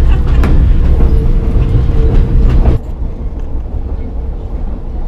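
Passenger train coach rumbling and rattling along the track, heard from inside the car, with scattered clicks and a faint steady hum. About three seconds in it drops abruptly to a quieter, steady rumble.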